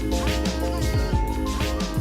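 Background music: a song with a strong bass and steady beat.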